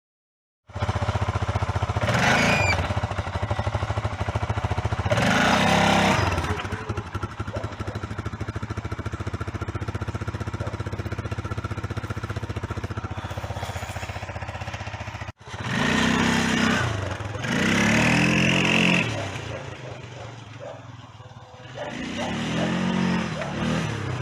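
Small engine running at a steady idle, revved up and back down about five times.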